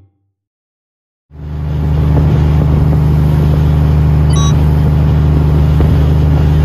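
Fishing boat under way: a steady low engine drone with the wash of water along the hull, swelling up about a second in after a brief silence.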